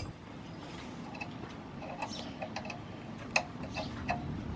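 A few faint, short clicks and ticks of hands handling the pressure washer's brass pump fittings, the sharpest about three and a half seconds in, over a low steady background hiss.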